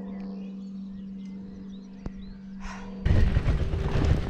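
Birds chirping faintly over a steady low hum, with a single click about two seconds in. A little after three seconds, loud wind rumble on the microphone starts suddenly as the camera moves along the gravel track.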